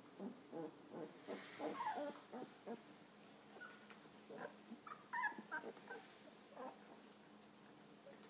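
Young golden retriever puppies whimpering in a string of short, soft calls, with a sharper, louder squeal about five seconds in.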